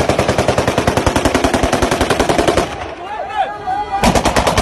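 Automatic gunfire at a wedding celebration: two long bursts of rapid shots, about ten a second. The first lasts nearly three seconds; the second begins about a second and a half after it ends. Voices shout in the gap.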